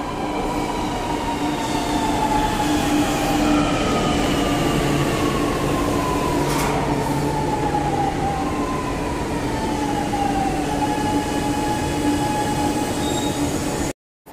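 Chennai Metro electric train pulling into the platform and slowing to a stop. Its whine falls in pitch as it brakes, over a steady hum and the rolling noise of the wheels. The sound cuts off suddenly near the end.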